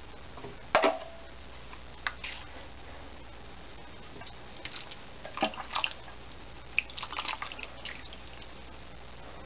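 Braised pot roast being scooped out of a slow cooker full of cooking liquid: scattered wet drips and splashes of broth, with a sharp utensil knock against the crock about a second in that rings briefly.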